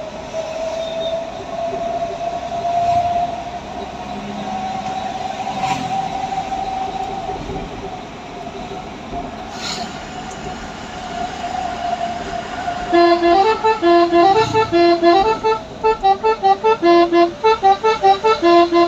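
A truck's telolet horn plays a quick tune of short, stepped toots, starting about two-thirds of the way in. Before that comes a steady droning tone that wavers slightly in pitch, broken by two sharp clicks.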